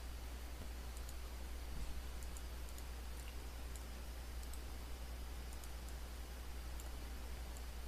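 Faint computer mouse clicks, a dozen or so scattered irregularly, over a steady low hum.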